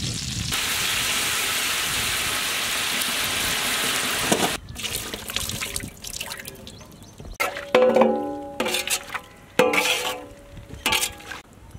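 Milk poured from cartons into a large aluminium pot of hot melted butter: a steady rushing pour for about four seconds that stops abruptly. After it, a slotted metal ladle stirs the milk, with a few short ringing clinks against the pot.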